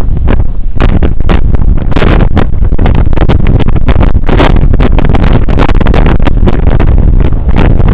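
Wind buffeting a compact camera's built-in microphone: a loud, gusty rumble with irregular thumps, overloading the recording.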